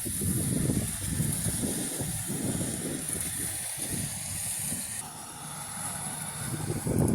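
Maxxi J rice combine harvester running steadily while harvesting, engine and threshing noise with a constant high hiss. The sound shifts about five seconds in and swells briefly near the end.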